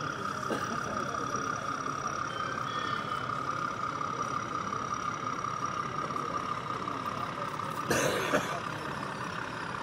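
OO gauge model diesel locomotive's DCC sound engine running steadily as it hauls a freight train towards a steep climb, over the background chatter of an exhibition hall. A brief louder burst comes about eight seconds in.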